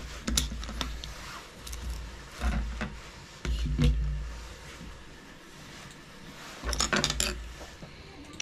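Hands handling an opened plastic three-pin fused mains plug and its cable on a stone countertop: scattered light plastic clicks and knocks with low dull thumps, in clusters about a second in, around three to four seconds in, and again near the end.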